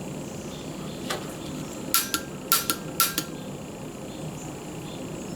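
A camp stove's piezo igniter clicking with the gas on: one faint click, then three sharp clicks, each followed closely by a lighter second click, with a short metallic ring. The gas does not light: the igniter is failing.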